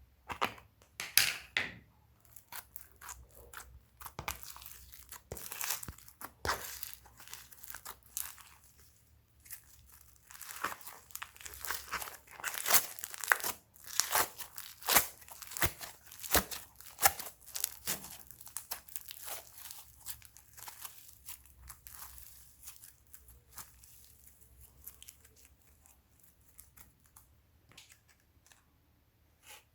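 Slime being squished, stretched and folded by hand, with irregular sticky crackling and popping clicks. The crackling is busiest in the middle and thins out near the end.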